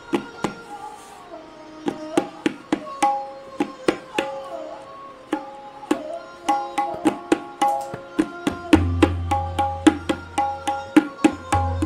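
Tabla solo in the Benares gharana style: rapid, crisp strokes on the dayan (treble drum) over a held, gliding melodic accompaniment. From about three-quarters of the way in, deep bass strokes on the bayan ring out and sustain beneath the strokes.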